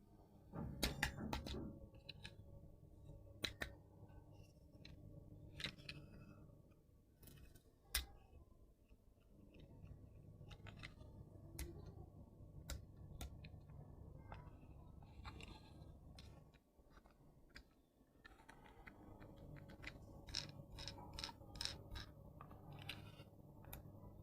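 Quiet handling of a toy and its packaging: scattered sharp clicks and taps over a low steady hum that stops for a moment about two-thirds of the way through.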